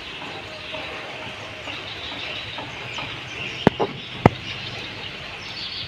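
Steady background hiss with two sharp clicks about half a second apart, a little past the middle.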